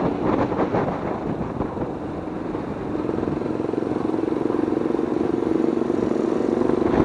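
Motorcycle engine running while riding, with road and wind noise; from about three seconds in, a steady engine note comes through more clearly.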